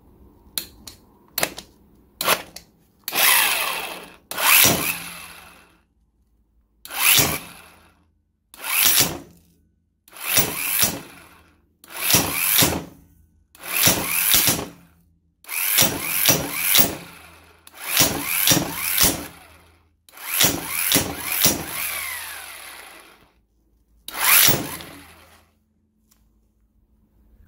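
Cordless 1/2-inch-drive impact wrench hammering in repeated trigger bursts, about a dozen, each from half a second to two seconds long with short pauses between, after a few quick blips at the start. It is driving a 2-inch socket on a 1-1/4-inch bolt held in a Skidmore bolt-tension tester.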